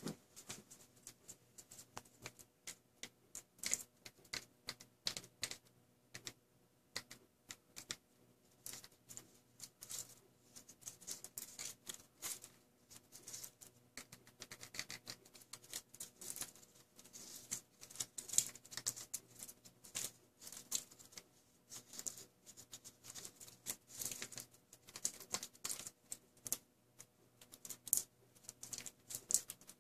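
Plastic felt-tip markers held between the fingers clicking and tapping against one another in quick, irregular, soft taps, like light typing.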